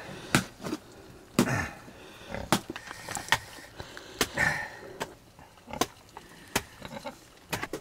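A large curved knife chopping green gourds into chunks on a tarp over the ground, a sharp chop with a dull thud roughly every second.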